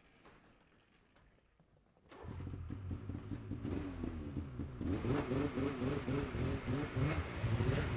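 Snowmobile's 800 cc two-stroke engine starting about two seconds in, then idling with an unsteady, wavering pitch, growing louder about five seconds in.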